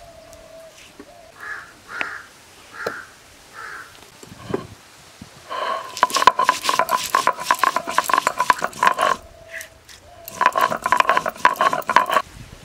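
Stone roller grinding cumin and pepper on a sil-batta, a grooved stone slab, in rapid rasping back-and-forth strokes. The rolling starts about halfway in, stops briefly, then comes again near the end.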